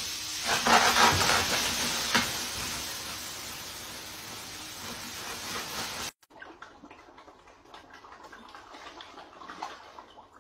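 Dry grain pouring from a sack into a pool of water, a steady rushing noise that fades slowly and cuts off suddenly about six seconds in. After that, only faint scattered clicks.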